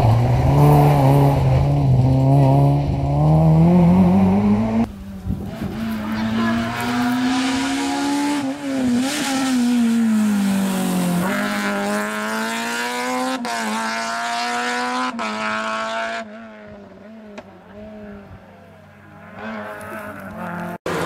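Rally car engines at hard throttle, one car after another, the engine note climbing and dropping again and again as the cars accelerate and shift gear. Near the end the engine sound turns faint and distant before swelling again.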